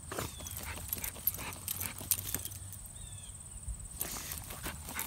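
A dog digging in soil with its paws, an irregular run of quick scrapes and scuffs of dirt. Crickets chirr steadily behind.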